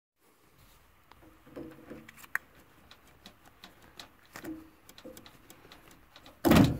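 Small sharp clicks and handling noises as needle-nose pliers work the insulated spade connectors on the terminals of an HVAC blower motor's run capacitor. A short, loud rush of noise near the end is the loudest sound.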